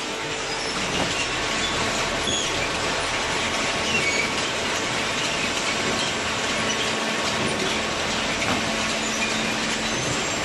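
Industrial machinery running steadily: a continuous mechanical noise with a steady hum and scattered short, high squeaks.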